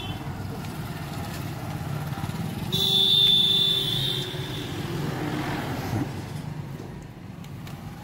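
Small electric motor in a mini remote-control toy car's gearbox, giving a brief high whine about three seconds in over a steady low hum. The motor runs but cannot drive the wheel because its gear is loose and broken.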